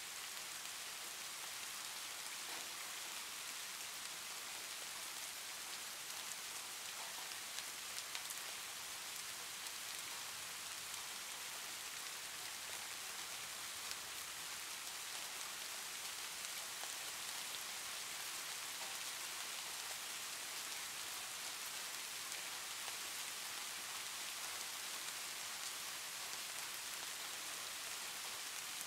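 Soft rain ambience: a steady, even hiss of falling rain, with a few faint ticks.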